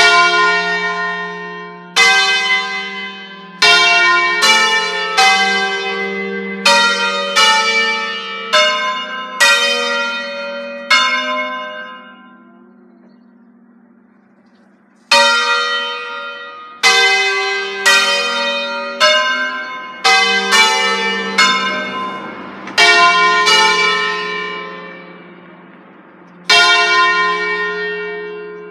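A peal of five church bells tuned in F, hung in the Ambrosian system, ringing an automatic preset concerto: single strokes follow one another in quick runs, each bell ringing on after it is struck. A pause of about three seconds comes around the middle, then the runs start again.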